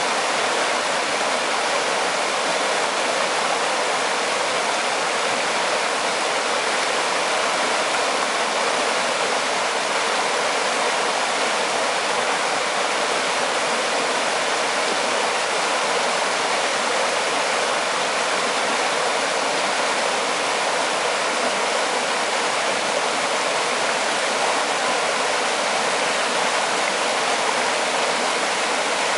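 Mountain river rushing steadily over rocks, a constant even roar of running water.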